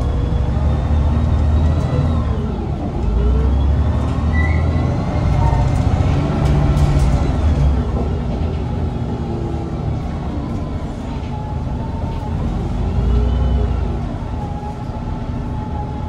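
Inside an Irisbus Citelis 18 articulated CNG bus on the move: a steady low rumble from the Iveco Cursor 8 engine and Voith automatic gearbox, with a whine whose pitch rises and falls several times as the bus gathers and loses speed.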